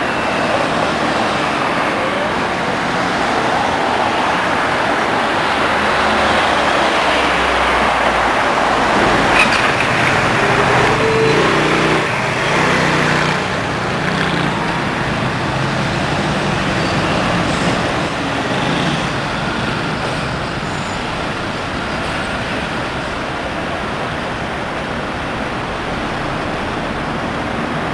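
Busy city road traffic: cars and trucks passing close by, a steady rush of engine and tyre noise that grows louder for a while in the middle.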